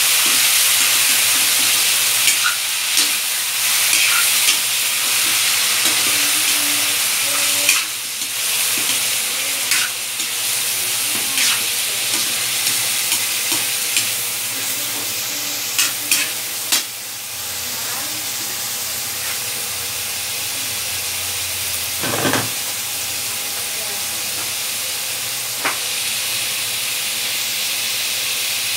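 Raw chicken pieces sizzling in hot oil in a wok, stirred with a metal ladle that clicks and scrapes against the pan now and then.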